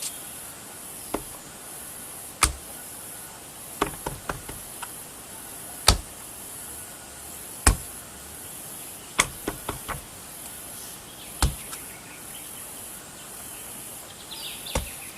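Rubber stamp knocking on the work surface: a series of sharp taps, some single and some in quick clusters of two to four, as the stamp is dabbed on an ink pad and pressed onto the paper.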